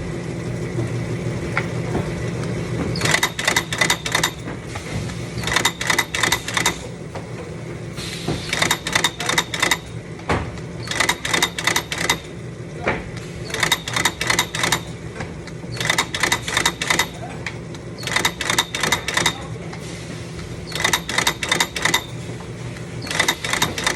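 Manual cardboard box taping machine clattering in bursts of rapid clicks, about one burst every two and a half seconds, over a steady low machine hum.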